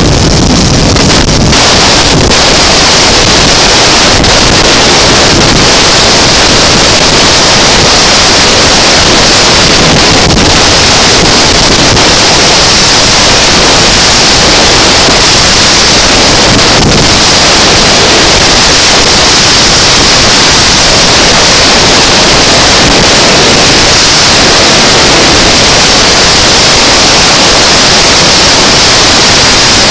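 Loud, steady wind rush on the microphone of a motorcycle travelling at highway speed.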